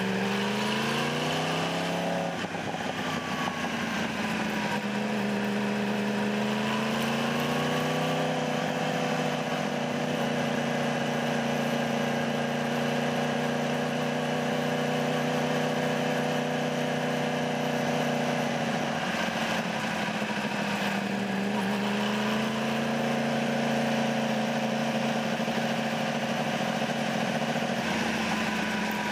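2015 Yamaha R1's crossplane inline-four engine under way, heard from a microphone on the bike with wind rush behind it. The engine note climbs over the first two seconds, drops back, climbs again and holds steady, eases off about two-thirds of the way through, then picks up and holds.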